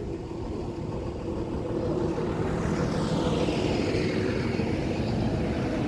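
Engine noise of something passing by, growing louder over the first two seconds, with a high hiss that falls in pitch as it goes past.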